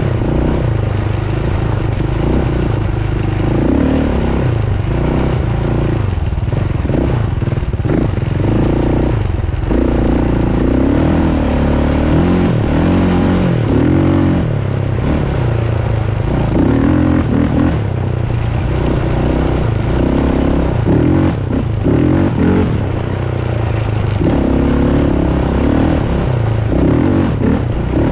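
Engine of a handlebar-steered off-road vehicle under way, its pitch rising and falling repeatedly as the throttle opens and closes, over a constant rushing noise.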